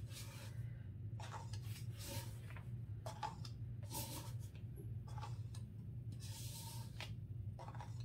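A scraper dragged across a plastic-covered table in short, irregular strokes, about one a second, scraping up wet acrylic pouring paint drippings into a cup. One stroke near the end is longer. A steady low hum runs underneath.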